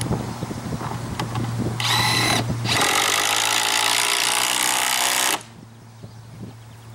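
Cordless drill driving a fastener into the plastic mailbox post: a short burst of the motor about two seconds in, then a longer run of about two and a half seconds that stops suddenly.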